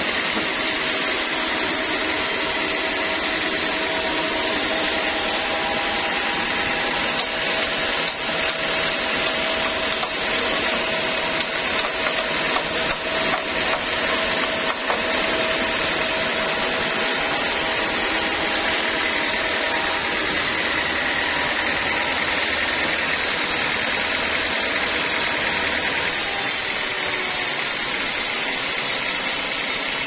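Vertical band saw mill cutting lengthwise through a teak log: a steady rasp of the blade in the wood over the running machine, with a steady whine. The sound turns a little more ragged between about seven and fifteen seconds in.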